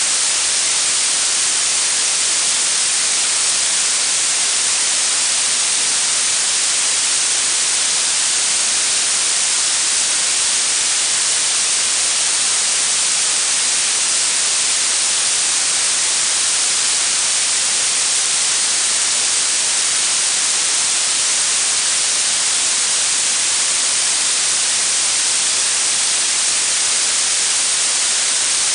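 Blue noise: a steady, unchanging synthetic hiss, brightest in the high treble and thin in the bass.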